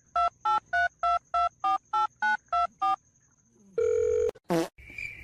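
Touch-tone phone keypad dialing: about ten quick two-tone beeps, each a different pitch, like a phone number being keyed in. Then a short buzzy beep and a steady high tone from the line.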